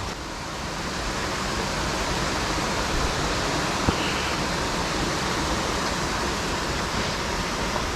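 Steady rush of creek water, the creek swollen by recent storm rains, with a single light click about four seconds in.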